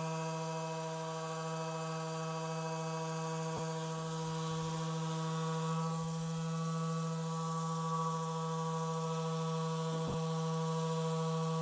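Handheld Rapid Release Therapy vibration massager running with a steady hum, its head pressed into the muscles around a shoulder blade.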